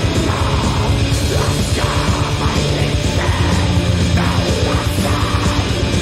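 Black metal music from a 1996 demo tape recording, played as a dense, unbroken wall of sound.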